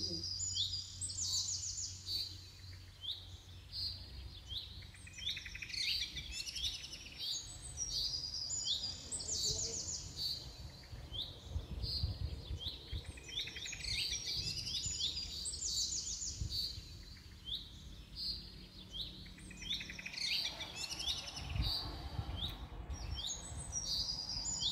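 Small birds chirping, quick repeated short calls and brief trills coming in bouts, several calls a second.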